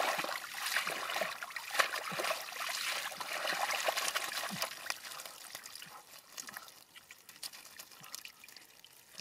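Muddy water splashing and trickling as a woven bamboo basket is scooped through thick mud and shaken, the water draining out through its weave. The splashing is louder for the first half and dies down to softer dribbling.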